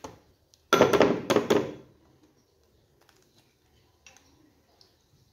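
A short clatter of eggshell and a small ceramic bowl, about a second long, as eggs are cracked and their yolks separated over the bowl, followed by a few faint clicks.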